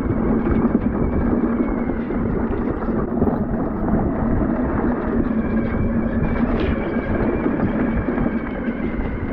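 Coyote electric ATV coasting downhill on a dirt trail with its drive power cut out: tyres rumbling over the ground with many small knocks and rattles, wind on the microphone, and a faint steady whine. The rider puts the power loss down to a relay box bounced loose on rough terrain.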